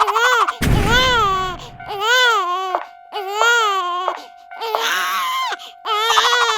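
A string of cartoon-style wailing cries, like a baby crying, each rising and falling in pitch, over background music with a steady held tone. A low rumble comes in under the cries early on, from just over half a second to about two seconds in.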